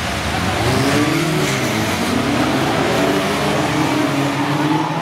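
A pack of BriSCA F2 stock cars racing through a bend, several engines revving at once, their notes rising and falling and overlapping.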